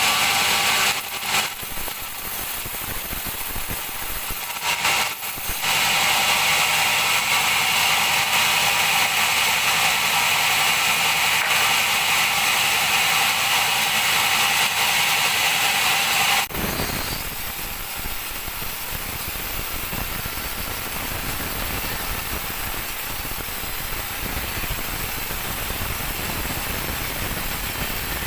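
Large sawmill bandsaw cutting through a teak log, a steady hissing blade-in-wood sound with two short dips in the first few seconds. Just past halfway the cutting sound stops abruptly and a lower, rougher machine running sound takes over.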